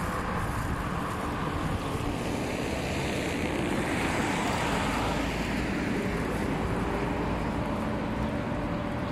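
Road traffic noise: a steady rumble of vehicles, with one vehicle passing that swells and fades about four seconds in, over a low steady hum.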